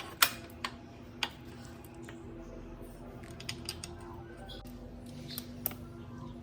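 Irregular sharp clicks and taps, the loudest near the start, over a steady low hum.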